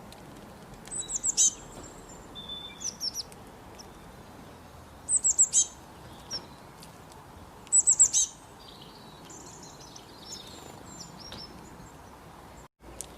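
Small birds chirping: quick bursts of three to five high, falling chirps every two to three seconds, with softer twittering later, over a steady hiss.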